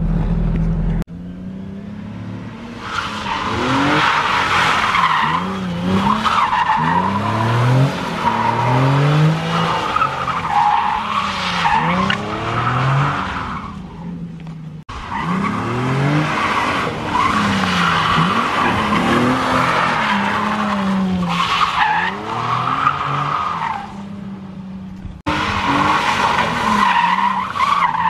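Cars drifting: engines revving up and down over and over, with tires squealing through the slides. The sound changes abruptly about a second in, near the middle and near the end, as separate passes are cut together.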